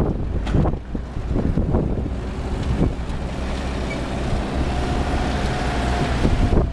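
Steady engine and road noise of a moving car, heard from inside its cabin, with a few short knocks in the first three seconds and a faint steady whine in the second half.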